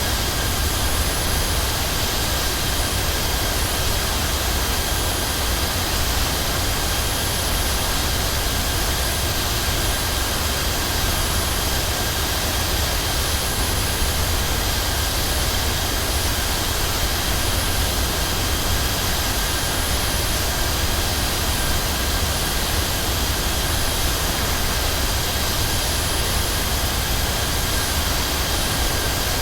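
Jet airliner heard from inside the cabin: a steady roar of engines and airflow with a deep rumble underneath and faint steady high whines, unchanging throughout.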